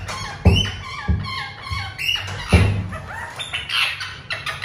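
A pet parakeet's short repeated chirping calls, each sliding down in pitch, with a few sharp thumps as it works at a plastic toy car.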